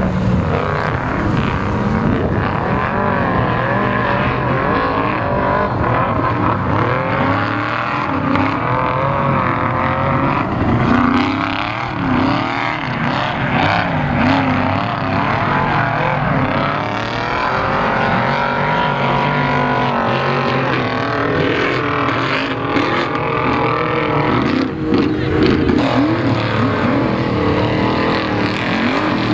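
Off-road race vehicle engines revving hard, on and off the throttle, with pitch rising and falling and more than one engine overlapping at times.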